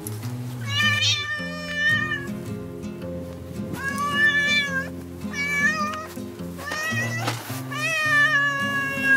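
A tabby cat meowing loudly and insistently, begging for food: a run of long meows of about a second each, falling in pitch at the end. Background music plays under them.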